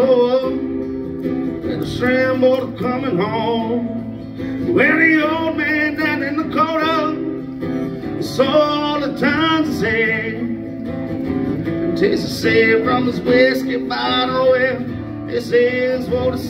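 Live acoustic music: an acoustic guitar strummed steadily, with a man's voice singing over it in phrases of a second or two.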